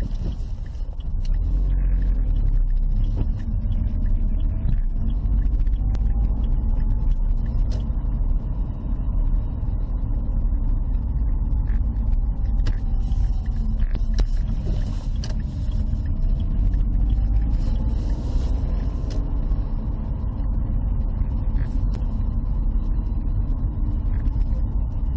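Car engine and tyre noise heard inside the cabin while driving: a steady low rumble with a faint engine whine that rises and falls a few times as the car speeds up and slows down.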